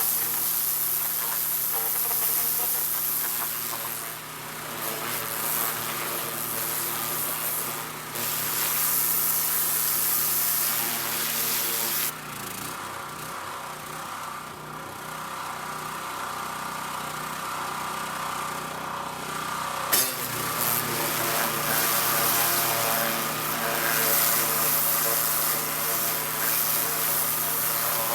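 A gas-engine pressure washer running steadily while its wand sprays, with a high hiss of water blasting on the truck frame that eases for several seconds in the middle and comes back strong after a sharp click about twenty seconds in.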